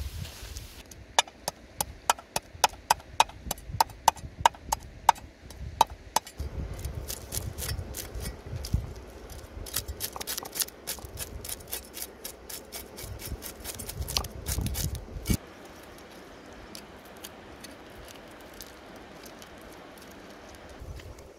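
Cleaver knocking on a wooden chopping block while cutting up fish. First comes a quick run of sharp, regular knocks, about three a second. Then come more scattered chops over a low rumble, easing off in the last few seconds.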